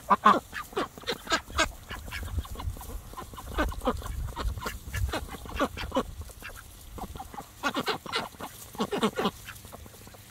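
A flock of domestic ducks feeding on an apple: short quick calls and bill pecks come in rapid clusters throughout. A low rumble runs under the middle part.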